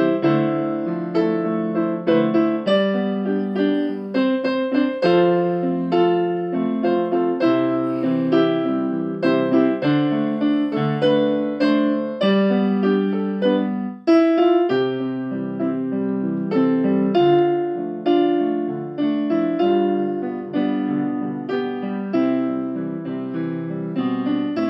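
Piano music with sustained chords and notes struck one after another, with a brief break about halfway through.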